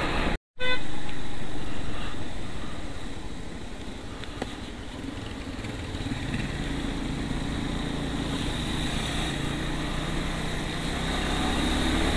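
Motorcycle engine running steadily while riding, with road and wind noise, growing louder near the end. The sound cuts out completely for a split second just after the start.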